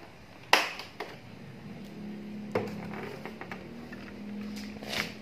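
Sharp clicks and knocks from a motorcycle seat being unlatched and lifted, the loudest about half a second in, with lighter knocks later.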